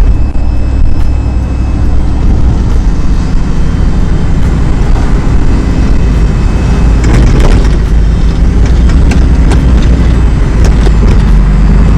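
Supercharged V8 of a 2002 Ford F-150 Lightning race truck running loud and rumbling, heard from inside the cab.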